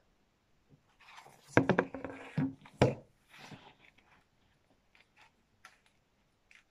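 A paperback book being handled and put down: rustling with a sharp knock near three seconds in, then a few faint light clicks.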